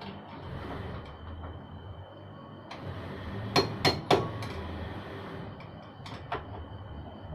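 Hand tools knocking and clinking on metal during motorcycle repair work. There are three sharp knocks close together about three and a half seconds in, then two lighter taps near the end, over a steady low hum.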